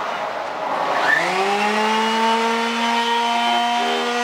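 Handheld power drill spinning up about a second in, then running steadily at a constant pitch.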